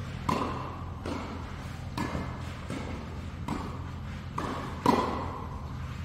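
Tennis rally: rackets strike the ball, which also bounces, giving about seven sharp pops, each with a short ringing echo in a large indoor hall. The loudest hit comes about five seconds in. A steady low hum runs underneath.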